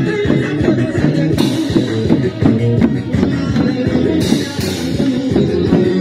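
Lively square-dance music with guitar, bass and drums and a steady beat.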